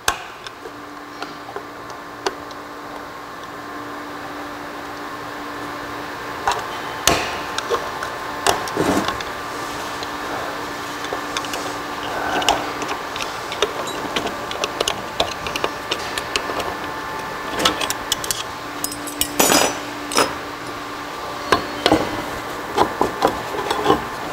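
Scattered sharp metallic clicks and knocks of hand tools and parts inside a Borg-Warner 1356 transfer case as the annulus gear's retaining spring is worked out and the gear freed. A couple of louder knocks come about a third of the way in and again near four fifths of the way through. A steady low hum carries underneath.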